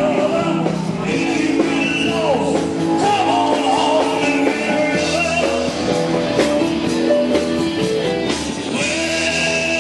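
Rock-and-roll song playing, with singing.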